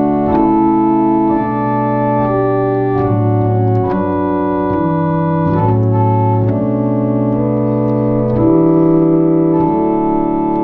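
1871 Walker pipe organ playing slow, held chords on the open diapason stop of the great manual, the chords changing about once a second. This is the fundamental English organ tone.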